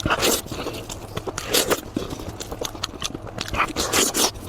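Close-up eating sounds: biting and chewing into the meat and cartilage of a cooked sheep's head, in irregular bursts.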